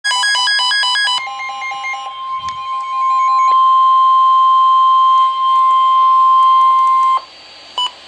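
Several weather-alert radios go off together with rapid multi-pitched alarm beeps for about a second. Then the NOAA Weather Radio 1050 Hz warning alarm tone, one steady high tone that marks an incoming warning, holds for about six seconds and cuts off suddenly. A short blip of the same tone comes near the end.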